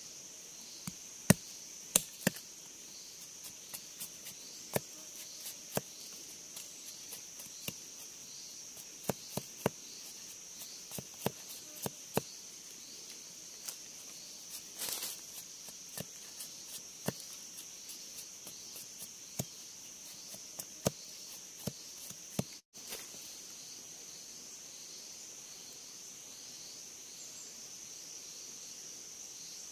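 Long knife chopping and cutting a bamboo stick against a log: irregular sharp knocks, over a steady high drone of forest insects. The knocks stop a little past two-thirds of the way through, leaving only the insects.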